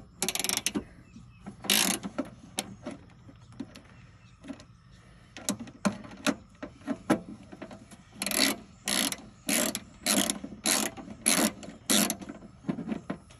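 Ratchet wrench with a 10 mm socket turning out the ignition coil's mounting bolt on a 1973 VW Beetle, its pawl clicking in short bursts on each back-swing. The bursts are irregular at first, then from about eight seconds in come as a steady run of seven strokes, a little under two a second.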